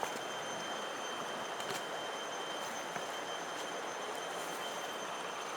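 Steady rushing noise of river water, with a faint steady high-pitched whine above it and a few light clicks.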